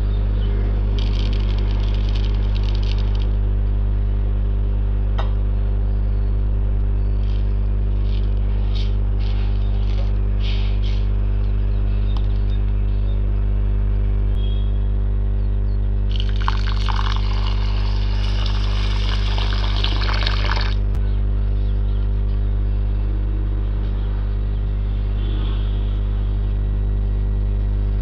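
A loud, steady low hum throughout. Over it, dry rice and dal grains rattle into a plastic colander in short pours early on and again around the middle, then water runs into the grains for about four seconds.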